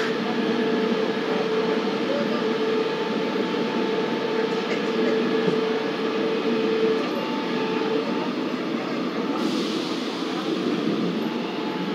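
Busan Metro Line 2 subway train running underground, heard from inside the passenger car: a steady rumble of wheels on rail with a steady hum that fades out about seven seconds in. A hiss comes in a couple of seconds later as the train nears the station.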